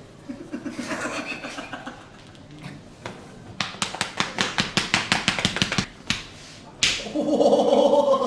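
Rapid, even hand slaps of a barber's percussive massage, about seven a second for a couple of seconds in the middle, then one sharp smack. A voice sounds before the slaps and again after the smack.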